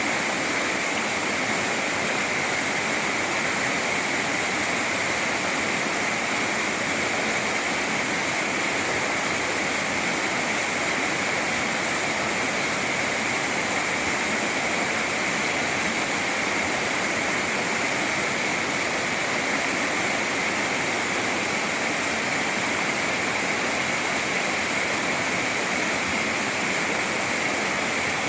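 Mountain valley stream rushing, a steady, unbroken rush of water.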